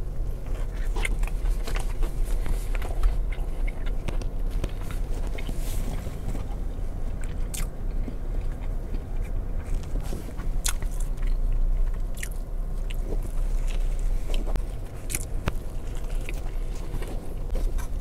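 A man biting into and chewing a McDonald's crispy chicken sandwich close to a clip-on microphone, with scattered short clicks and crunches, over a steady low hum.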